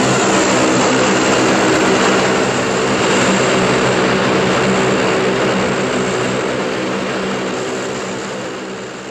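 Old Chevrolet pickup fitted with a 12-volt-driven propeller (a repurposed wind-turbine rotor) driving away. It gives a steady droning hum under a loud rushing whirr, fading gradually as it goes.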